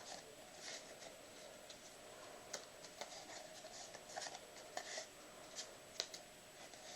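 Playing cards being dealt and slid onto piles on a table: faint soft taps and scrapes of card on card at irregular moments, over a quiet room hiss.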